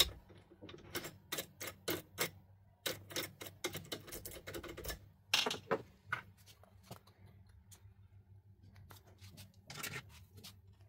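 Sharp clicks and taps of a key worked in a euro lock cylinder and small metal tools handled and set down on a wooden workbench. They come a few a second, thick in the first half and sparser later.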